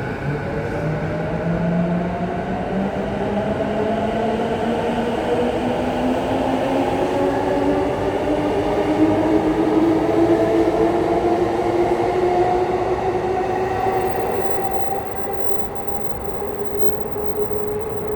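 Electric commuter train pulling away and accelerating, its inverter-driven traction motors giving a steady whine that rises in pitch, over the rumble of the train running on the rails.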